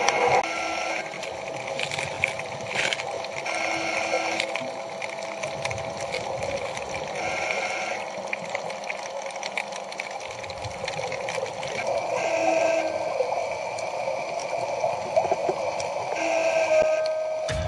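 Scuba diver's regulator breathing, heard underwater: a short tonal breath about every four seconds, with bubbling and crackle between.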